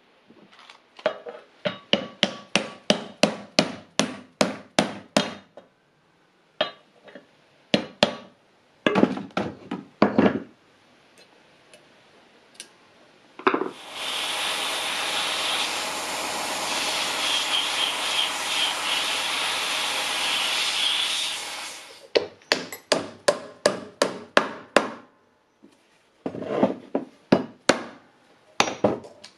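Series of sharp hammer taps, about three a second, on a bearing driver, seating ball bearings into the hub of a cast-iron band saw wheel. Partway through, an aerosol of brake cleaner sprays in one long hiss of about eight seconds, and then the tapping resumes.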